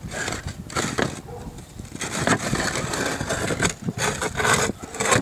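Roof tiles being lifted and shifted in a tile roof valley: an uneven run of clacks and scrapes of tile against tile and flashing.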